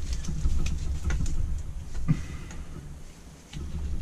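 Screwdriver clicking and scraping on the metal body of a Holley four-barrel carburettor as its secondary housing screws are worked loose, with scattered small ticks and knocks over a low steady rumble.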